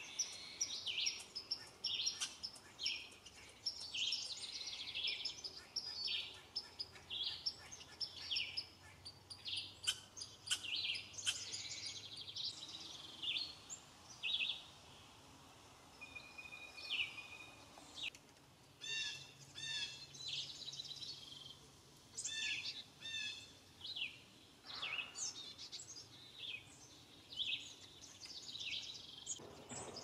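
Wild songbirds singing and calling: a dense, overlapping run of quick high chirps and song phrases for the first dozen seconds or so, then sparser short calls and repeated notes.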